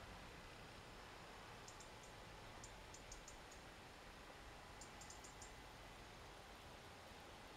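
Near silence: faint outdoor ambience with three short clusters of quick, high-pitched ticks.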